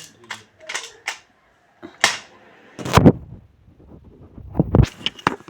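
A person hiccuping repeatedly: several sudden, sharp hiccups about a second apart, the loudest about three seconds in.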